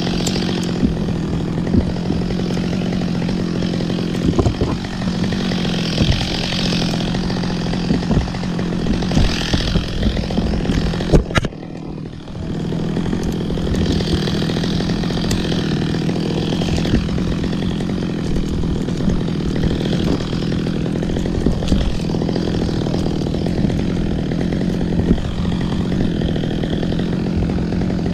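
Chainsaw engine running steadily at high speed, with a brief drop in level about eleven seconds in before it picks up again.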